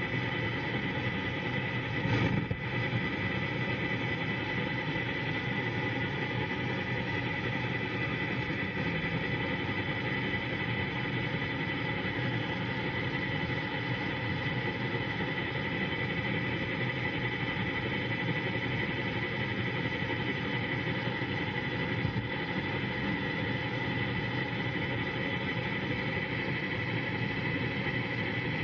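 Car AM radio tuned to 1230 AM giving out steady crackling static from lightning, with a thin steady whistle running through it. A louder crash of static comes about two seconds in.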